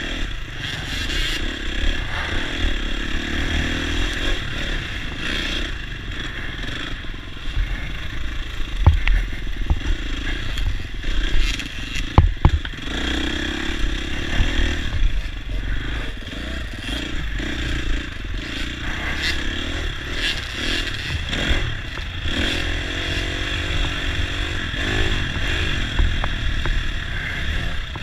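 Dirt bike engine running and revving up and down as it rides a rough trail, heard from on board, with rattling and scraping from the camera and bike over the bumps. A few hard knocks from bumps stand out partway through.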